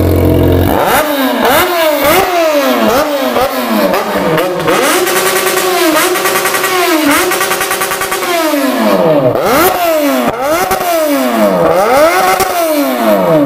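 Yamaha XJ6's 600 cc inline-four engine revved in place through a straight-pipe exhaust with no muffler. It starts from idle, gives a quick series of short throttle blips, then longer revs each held about a second, and drops back to idle near the end.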